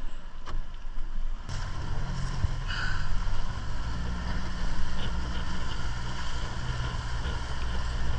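Boat's outboard motor running steadily under wind and water noise, its low hum setting in after a knock about a second and a half in.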